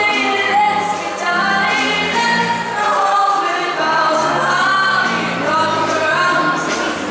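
Choir of a folk song and dance ensemble singing a Polish Christmas carol (kolęda), several voices over steady low sustained notes.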